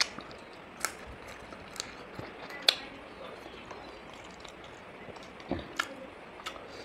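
A person eating chicken wings in curry: scattered short wet smacks and clicks of chewing and mouth sounds, the loudest a little under three seconds in.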